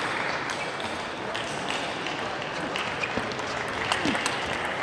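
Spectators in an arena applauding steadily. A few sharp clicks of a table tennis ball against bats and table sound over the applause as a rally gets going.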